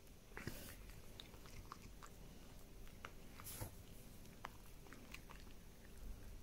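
A Korat cat chewing a dried duck-fillet treat: faint, irregular crunching clicks of its bites.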